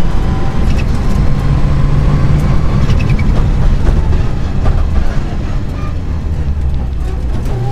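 Mitsubishi Lancer Evolution VI's turbocharged four-cylinder engine heard inside the car at stage pace, its note climbing and dropping through gear changes, with road and chassis noise and a few knocks. The engine has a misfire and is being short-shifted at about 4,250 rpm.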